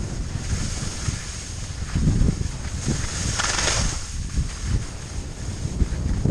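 Wind rumbling and buffeting on the microphone of a skier's worn camera during a fast run downhill, with the skis hissing over the snow; the hiss swells briefly about three and a half seconds in.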